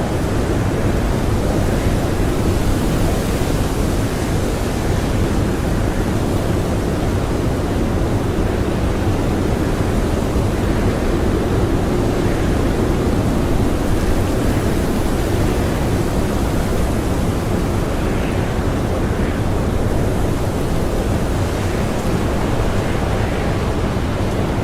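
Strong blizzard wind howling in a steady, dense rush, swelling and easing slightly now and then.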